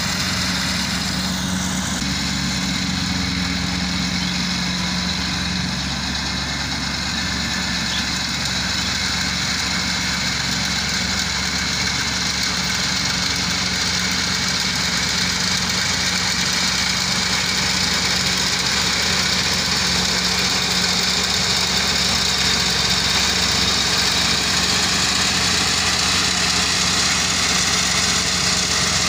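Combine harvester harvesting paddy, its engine and threshing machinery running in a continuous steady drone with a constant low hum. It grows slightly louder through the second half.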